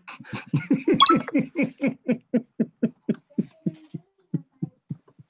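A man laughing hard in a long run of short 'ha' bursts, about four a second, with a high squeal about a second in. The bursts slow down and fade near the end.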